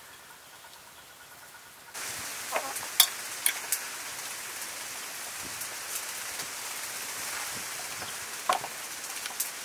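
Hands handling a marinated whole duck on a bamboo skewer and binding its feet with wire: sharp clicks and taps, the loudest about three seconds in, over a steady hiss that starts abruptly about two seconds in.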